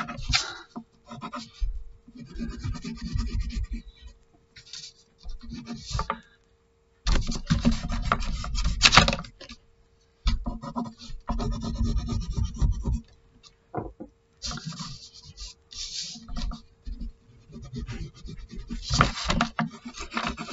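Pencil sketching on paper: irregular stop-start scratchy strokes, with the hand and the sheet rubbing, broken by short pauses.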